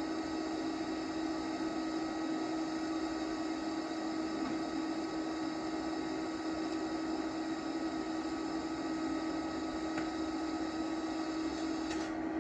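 TIG welding arc from a YesWelder TIG-205DS inverter welder burning steadily on a freshly sharpened tungsten: a constant electrical hum with fixed high whining tones and hiss. The highest hiss drops away just before the end as the arc is broken.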